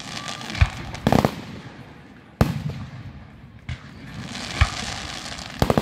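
Aerial fireworks shells bursting in a series of sharp booms, about one a second, with crackling sparks between them.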